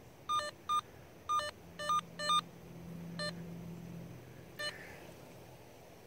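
Handheld receiver of a Vevor underground cable locator giving seven short electronic beeps at uneven intervals as it is swept over the ground, picking up the tracer signal in fits and starts.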